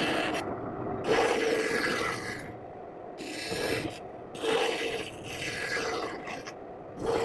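A blade cutting into a wooden block in repeated scraping strokes, each lasting about a second, with short pauses between them.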